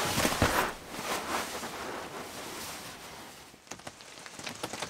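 Rain on a cardboard box tent, heard from inside: a dense hiss that fades about three and a half seconds in, then scattered drops tapping on the cardboard.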